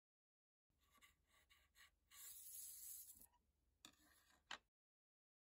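Coiled silver wire being worked off a 3.5 mm mandrel by hand: a few light clicks, then about a second of scraping as the coil slides along the rod, then two sharp clicks.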